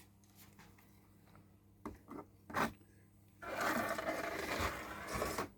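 Digital Scalextric slot car running along the track for about two seconds, a scraping whirr of its motor and pickup braids on the rails, after a few light clicks. The car keeps going over the section fed only through the jumper cables, showing that the power is getting through.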